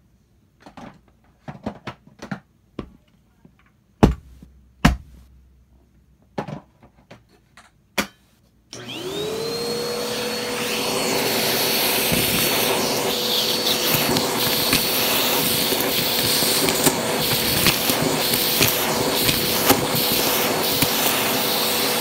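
Scattered clicks and a couple of sharp knocks, then a vacuum cleaner switches on about nine seconds in, its motor whine rising quickly to a steady pitch. It runs steadily as its crevice tool sucks up a pile of dirt and grit from the carpet.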